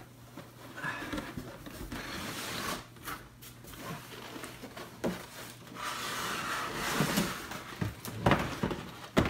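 Cardboard and packaging being handled and rummaged inside a large box: rustling and scraping with a few knocks, the loudest two near the end.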